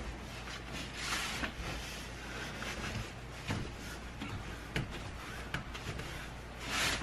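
A rag wiping excess glue off a clamped wooden workpiece: two short scrubbing strokes, one about a second in and one near the end, with a few light knocks of wood being handled in between.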